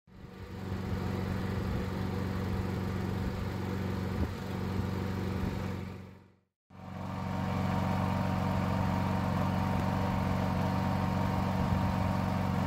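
Steady low machine hum, like an idling motor. It cuts out briefly about halfway through and comes back unchanged.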